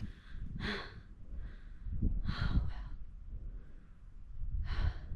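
A woman breathing hard, three long breaths about two seconds apart, as she gets her breath back after a steep climb to a summit.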